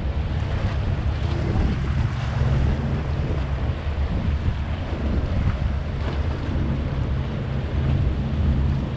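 Wind buffeting the camera microphone in a steady low rumble, with lake waves washing against the breakwater rocks.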